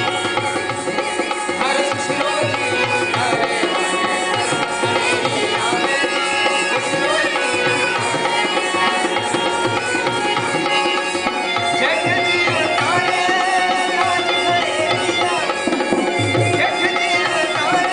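Rajasthani folk music: a two-headed barrel drum (dholak) played by hand in a continuous rhythm, with a man singing over held instrumental notes.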